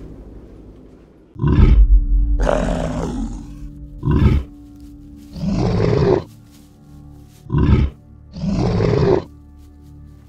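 A werewolf growling and roaring in three short-then-longer pairs, over a steady music score.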